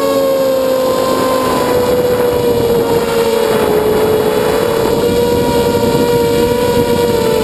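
Eachine Racer 250 quadcopter's 2204 2300KV brushless motors and propellers whining in flight. It is a few close pitches that waver and drift as the throttle changes, with a rushing noise that is strongest in the middle.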